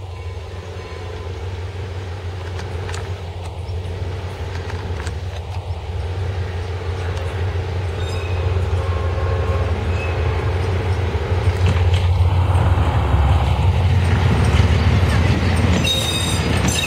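Lxd2 narrow-gauge diesel locomotive running as it hauls a tourist train, its engine drone growing steadily louder as it approaches. Near the end the coaches roll close by, with a brief high wheel squeal.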